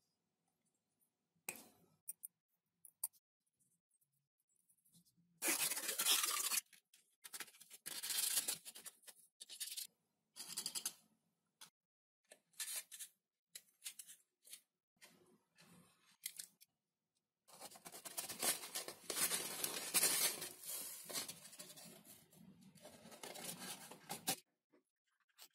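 Small workshop handling sounds while a foam ducted fan is built: a few light clicks of parts being fitted, then irregular bursts of foam being cut, scraped and rubbed, with short quiet gaps between.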